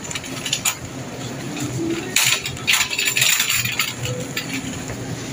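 Light clinking and rattling over steady shop background noise, with a few louder clattering rattles about two to three and a half seconds in.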